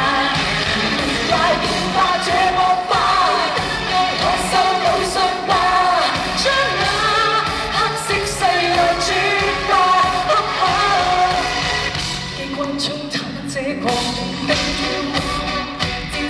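Live Cantopop song: a woman singing lead into a microphone over a full band with drums, keyboards and guitars, heard through the arena's PA. The vocal drops back for a moment about twelve seconds in while the band carries on.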